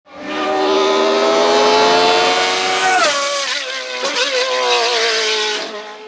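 Race car engine at high revs, its pitch climbing slowly and then dropping sharply about halfway through. It then revs unevenly and fades out near the end.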